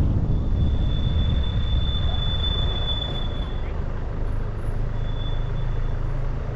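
Road vehicle on the move: a steady low rumble of engine and tyres. A thin high-pitched whine sounds over it for about three and a half seconds, then again briefly about five seconds in.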